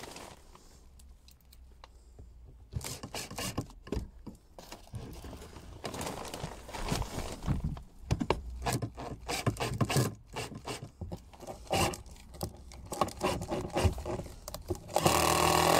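Short knocks and scrapes of a timber batten and a cordless drill being handled and lined up, then near the end a Makita cordless drill runs with a steady whine, driving a screw into the batten.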